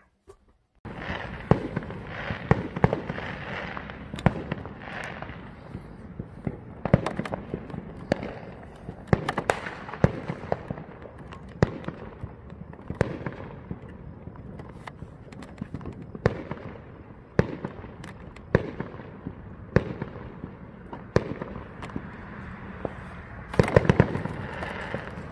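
Fireworks going off all around the neighbourhood: sharp bangs about once a second at irregular intervals over a continuous din of more distant bangs, with a dense cluster of bangs near the end.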